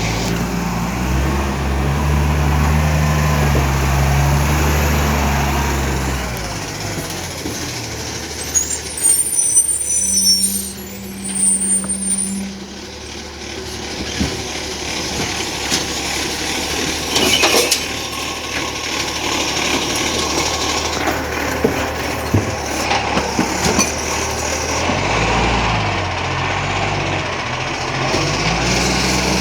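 Iveco ACCO side-loader garbage truck at work: its diesel engine runs up hard for several seconds, then drops to a quieter idle with a hiss of air and scattered knocks, before it runs up again near the end.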